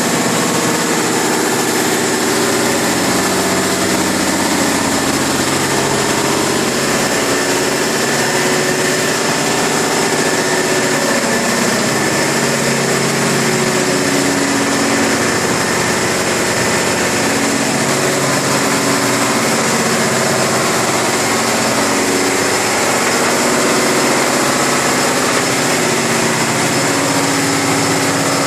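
Ship's engine-room machinery running: a loud, steady mechanical din with a low drone and a high whine that never lets up.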